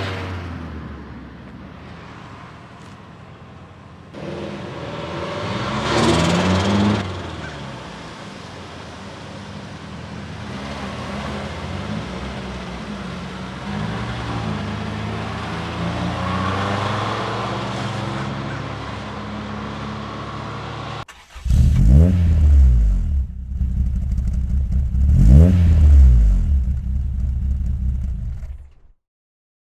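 Turbocharged Nissan DR30 Skyline engine revving as the car drives by, with the fluttering chatter of the big turbo when the throttle closes. About two-thirds of the way in, the sound jumps to much louder and closer, with two sharp rising revs, then cuts off.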